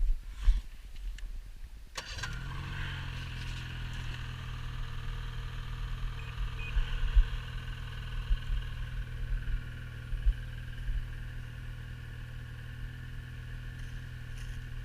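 A motor engine starts suddenly about two seconds in and then runs steadily at an even idle. Low wind rumble sounds on the microphone before the engine starts.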